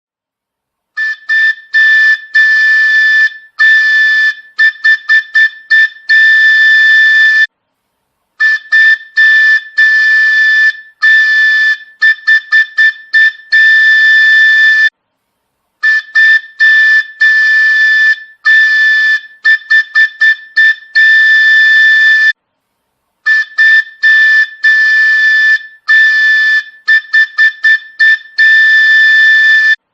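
Train horn sound effect: a loud, high, single-pitched whistle tooted in runs of short quick blasts and longer held blasts. The same sequence repeats about every seven and a half seconds, with a brief silence between repeats.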